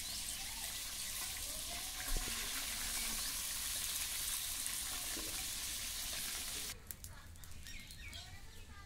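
Fish pieces frying in hot oil in a steel wok over a wood fire: a steady sizzle, with one sharp knock of the metal spatula about two seconds in. The sizzle cuts off abruptly near the end, leaving birds chirping.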